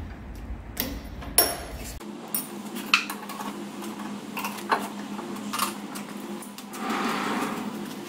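Metal clanks and clinks of a spanner on the bolts and the hinged top arm of a lathe steady rest being loosened and swung open, half a dozen separate sharp knocks. A low hum cuts off about two seconds in, and near the end there is a short rustle of a nylon lifting sling being wrapped around the steel barrel.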